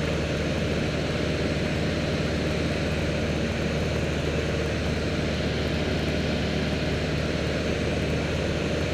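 Cabin noise of a Piper Archer II in flight: the four-cylinder Lycoming engine and propeller give a steady drone, with a constant hiss of airflow over the cabin.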